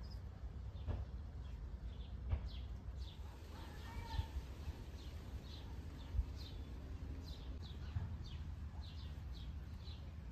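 Small birds chirping in many short, high, falling calls, growing busier in the second half, over a low outdoor rumble. A few light clinks of tableware come now and then.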